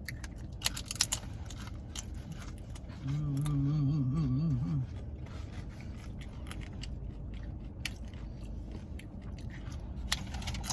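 Eating sounds: chewing and crunching with scattered clicks and scrapes of the takeout bowl. About three seconds in, a voice hums a wavering 'mmm' for nearly two seconds. Under it runs the steady low hum of the idling car with its air conditioning on.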